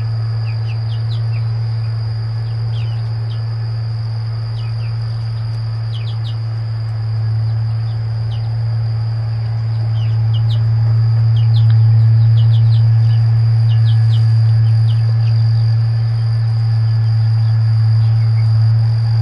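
Young chickens peeping in short, scattered chirps over a steady high-pitched insect drone, with a loud steady low hum underneath.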